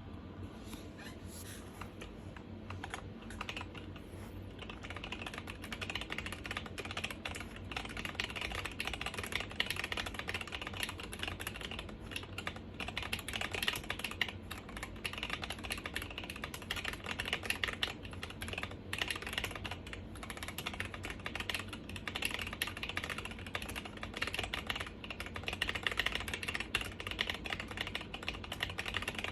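Custom mechanical keyboard with NovelKeys Silk Yellow linear switches in a cast acrylic sandwich case, with lubed and clipped stabilizers, being typed on. A fast, steady run of key clacks, sparser for the first few seconds.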